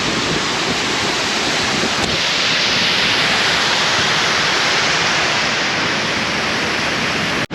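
Steady rush of river water flowing close by, a constant hiss of noise that cuts off abruptly near the end.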